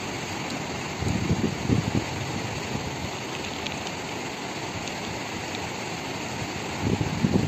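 Fast, muddy river rushing with a steady hiss, with two short low rumbles, about a second in and near the end.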